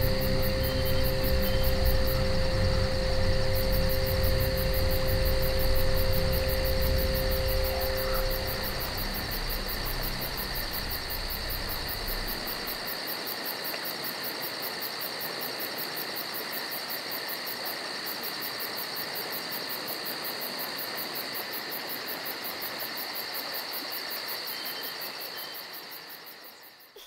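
Steady background hiss with faint high steady whines, over a low rumble that stops about halfway through.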